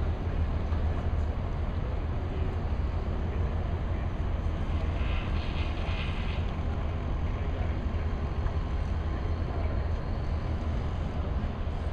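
Steady outdoor background noise: a low rumble under an even hiss, with a short brighter hiss a little past the middle.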